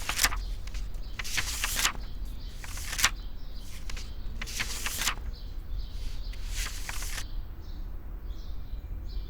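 Quiet ambience with a low steady hum and several short, hissy sounds over it.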